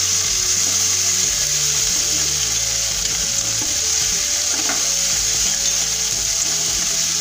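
Ginger and green-chilli paste with cumin paste, cumin seeds and bay leaves frying in mustard oil in an aluminium kadai, with a steady sizzle, stirred with a spoon as the spice paste is sautéed.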